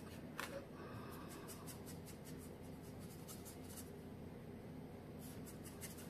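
Faint, scratchy strokes of a paintbrush dabbing and dragging acrylic paint across a stretched canvas, coming in quick runs, over a low steady room hum.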